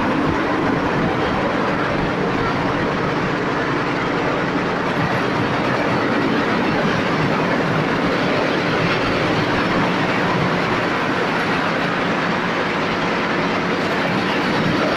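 Industrial laser fabric-cutting machine running: a loud, steady mechanical noise with a low hum.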